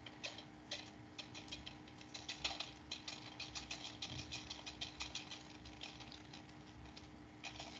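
Salt grains sprinkled from the fingers onto plastic wrap stretched tight over a beaker, landing in a faint, irregular patter of tiny ticks.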